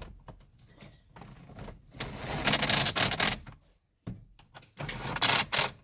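Ratchet wrench clicking in quick runs while a bolt is driven in, in two bursts: a longer one about two seconds in and a shorter one near the end, with tools and parts rattling between them.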